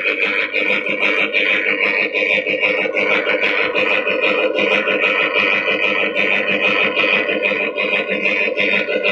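Mini groundnut oil expeller running: a steady mechanical whine from its motor and gear drive with a continuous fast rattle of the crushing mechanism.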